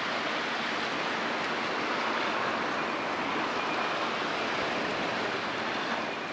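Steady rushing of sea water and waves, an even hiss with some wind; no ship's engine stands out.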